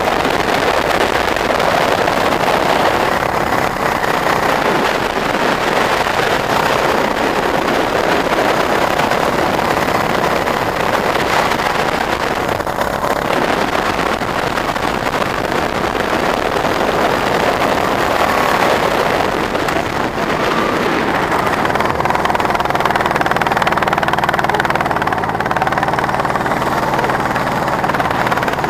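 Go-kart engine running at speed, heard from on board the kart, a continuous loud mechanical noise; a steadier low engine hum comes through in the last several seconds.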